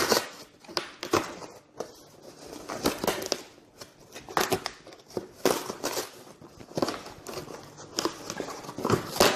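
Cardboard box being pried open by hand: the flap pulled up and the cardboard tearing, with irregular crackles and scrapes.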